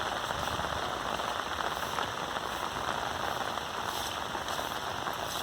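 Steady patter of rain falling on saturated ground at the tail end of a heavy downpour.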